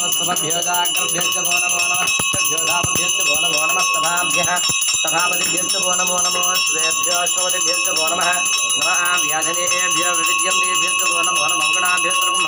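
Puja hand bell rung rapidly and without pause, its several high ringing tones held steady, with a voice chanting underneath during a Shiva abhishekam.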